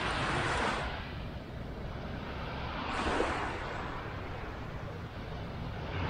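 Small waves washing up on a sandy beach, the hiss swelling and fading about every three seconds, over a low rumble of wind on the microphone.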